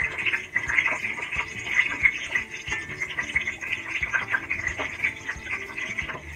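Long green chillies frying in hot oil in a wok: a steady sizzle full of small, quick crackles and spits.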